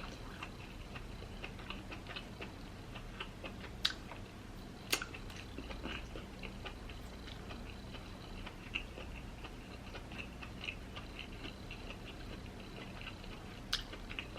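Close-up chewing of lobster meat: a steady run of soft, wet mouth clicks, with a few sharper clicks about four and five seconds in and again near the end.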